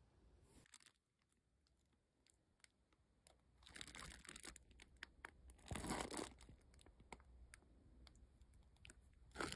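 Faint crunching and crinkling with scattered small clicks from an Oreo ice box cake being dug into, louder in three short spells: about four seconds in, around six seconds, and near the end.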